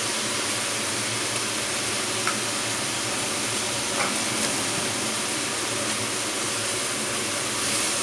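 Fermented sour pork (naem) sizzling steadily in hot oil in a pan, with a couple of faint taps about two and four seconds in.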